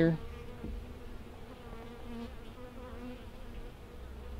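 Honeybees buzzing around an open hive, a steady hum with the pitch of nearby bees wavering as they fly past.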